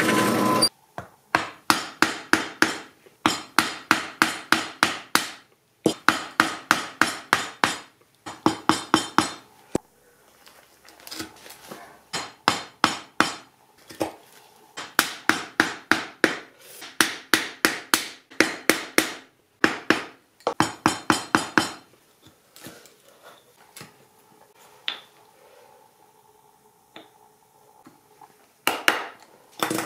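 Hammer striking a chisel in quick runs of sharp taps, about four or five a second, chopping a square mortise into a block of wood; the taps thin out to a few light ones later on. A power drill with a Forstner bit runs briefly at the very start and stops.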